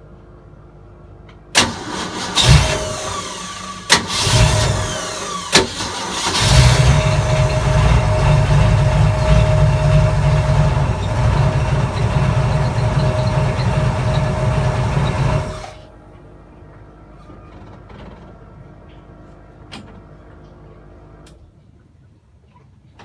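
Ford 302 small-block V8 being cranked over on its starter. First come a few short clicks and bursts, then about nine seconds of continuous cranking that cuts off abruptly, without the engine catching.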